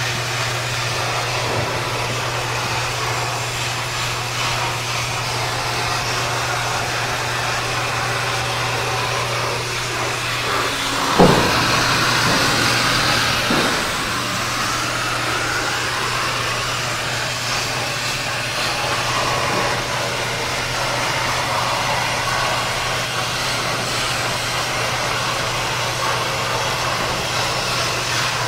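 Vulcan computerized plasma cutting table cutting sheet metal: the plasma arc's steady hiss over a constant low hum. It grows louder for a few seconds about eleven seconds in.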